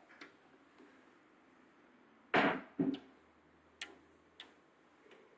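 Two sharp knocks about half a second apart, the first with a short ring after it, followed by two fainter clicks.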